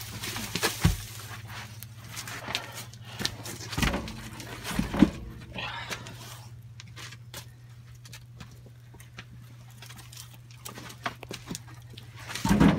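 Split firewood logs being loaded by hand into the firebox of a Woodmaster 4400 outdoor wood boiler: a handful of dull wooden knocks and thuds as logs land on the load, the loudest a little under halfway through and another near the end, over a steady low hum.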